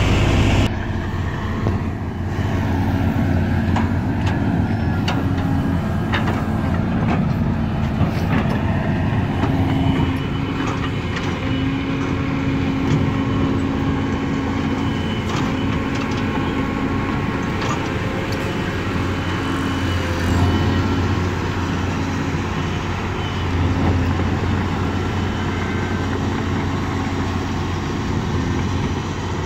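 Caterpillar 320C tracked excavator's diesel engine running steadily as the machine travels on its steel tracks, with frequent sharp clanks and clicks from the track links and rollers.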